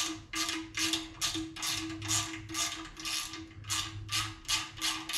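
Oscillating multi-tool running with a steady high hum while its blade cuts the engine's windage tray in rhythmic strokes, about three a second, to trim it for oil pickup clearance.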